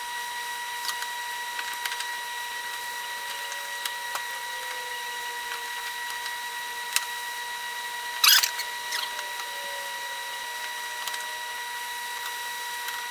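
Light taps and clicks of cornmeal-coated squash slices being set down on a cast-iron griddle pan, with one louder clatter about eight seconds in, over a steady high-pitched whine.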